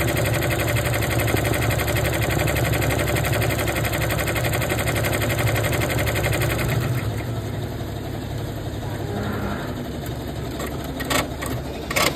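Brother Entrepreneur 6-Plus PR670E embroidery machine stitching at speed, a fast steady mechanical rhythm from the needle head. About seven seconds in the stitching stops and the machine runs quieter, with a couple of sharp clicks near the end.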